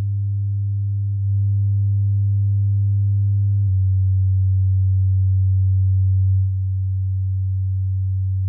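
Low bass test tone near 100 Hz, a steady sine played through a small studio monitor, stepping to a new pitch three times with faint overtones above it.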